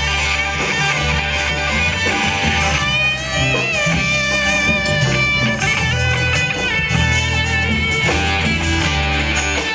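Electric guitar (a sunburst Les Paul-style solid-body) played live through a Marshall amp. It plays a lead line of long held notes bent up and down, clearest in the middle of the passage, over steady low notes underneath.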